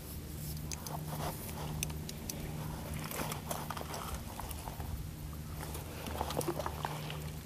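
Footsteps crunching and clicking irregularly on loose coral rubble, over a low steady hum.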